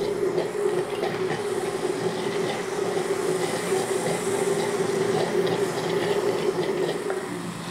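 Countertop blender running steadily, puréeing cooked beans and broth with cream into a smooth soup. The motor is switched off near the end and the sound drops away.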